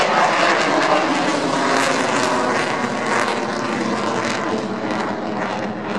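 Eurofighter Typhoon's twin EJ200 turbofan engines heard from the ground as the jet flies its display high overhead, a loud steady jet roar that wavers and fades slightly.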